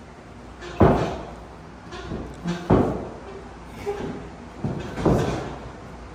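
Loud smacks from wrestlers working in a wrestling ring, three big ones about a second in, near three seconds and near five seconds, with a couple of lighter knocks just before the second. Each rings out briefly in a large, echoing metal hall.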